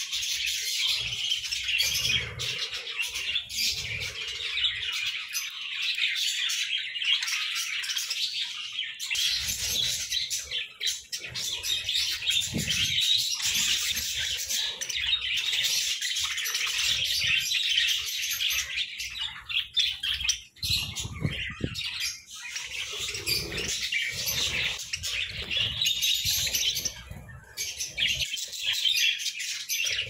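A flock of budgerigars chattering and chirping, many voices at once without a pause.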